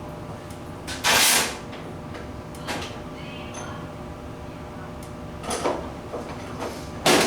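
Hand carving tool cutting into wood: four short scraping strokes, the loudest about a second in and near the end, over a faint steady hum.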